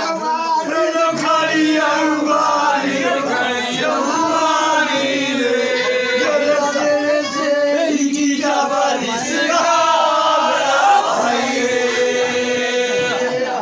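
Voices chanting a devotional bhajan, with long held and gliding notes, unbroken until the singing stops at the very end.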